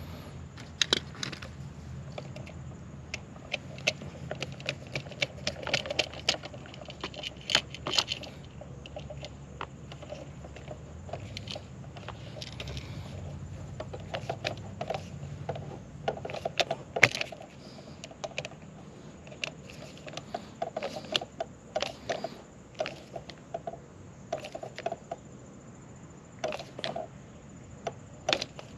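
Irregular small metallic clicks and scrapes of a screwdriver turning the terminal screws on a GFCI receptacle, with the outlet's metal strap and wires clinking as it is handled.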